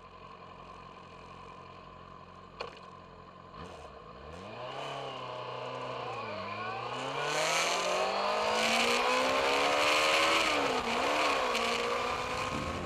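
Motorcycle engine idling, then pulling away and accelerating, its pitch climbing and dipping briefly twice at gear changes. Wind rush grows as speed builds.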